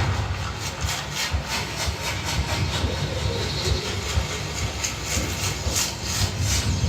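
Sound effects from a Dolby demo soundtrack, played back on a Yamaha 3.1-channel home theatre: a steady low rumble with hiss and many irregular clicks and taps.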